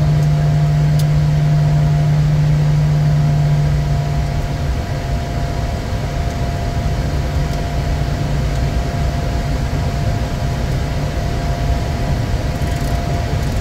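Steady engine and airflow noise heard inside a Bombardier Challenger 350 business jet, with a strong low hum that drops away about four seconds in and a faint steady whine throughout.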